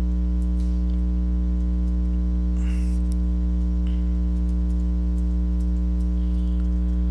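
Steady electrical mains hum with a stack of overtones, loud and unchanging, picked up by the recording; a few faint brief scratchy noises sit over it.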